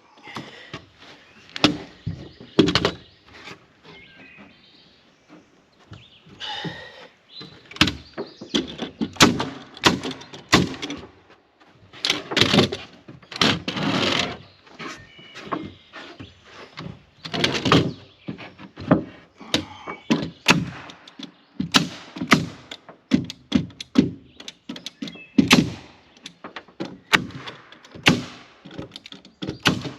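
Irregular knocks and thunks of wooden boards being handled and fastened during carpentry. A few longer noisy stretches of about a second come about halfway through.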